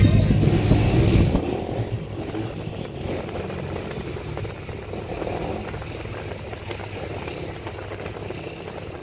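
Steady road and engine noise of a car driving slowly, heard from inside the car. Loud music with a heavy beat from roadside bars drops away abruptly about a second and a half in.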